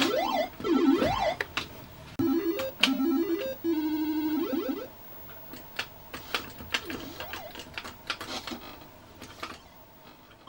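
Galaga arcade game sound effects played through the Commodore 1084 monitor's built-in speaker. Swooping dive sounds and shots are followed by a short tune of stepped notes from about two seconds in. After about five seconds it drops to quieter blips and clicks.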